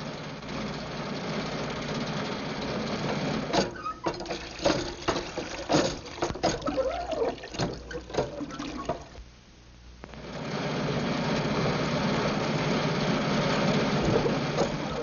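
Sound effect of a crippled old car running. A steady engine-like hum gives way, a few seconds in, to about five seconds of irregular clanking and knocking. The sound dies briefly, then the steady hum picks up again.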